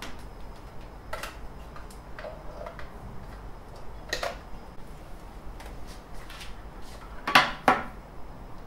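Cables and a plastic power supply brick being handled and plugged in: scattered light clicks and knocks, with two louder knocks a fraction of a second apart near the end.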